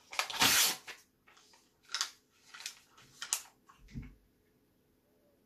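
A printed paper picture being bitten and torn with the teeth: a harsh tearing burst lasting under a second, then a few separate sharp crackles as the wad of paper is chewed, and a low thump about four seconds in.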